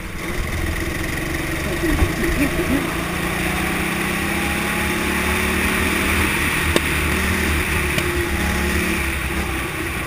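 Go-kart engine heard from the driver's seat, accelerating out of a corner, its pitch rising steadily along the straight and easing off near the end, over wind and road noise. There are a couple of sharp knocks.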